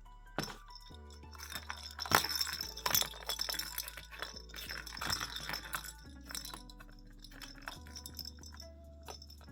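Background music over a run of quick clinks and taps on a food dish, thickest about two to three seconds in and thinning out after about six seconds: kittens eating from a bowl.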